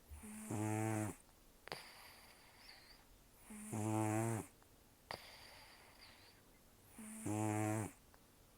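An elderly cat snoring in its sleep: three rough, pitched snores about three and a half seconds apart, each about a second long, with fainter breaths through the nose in between.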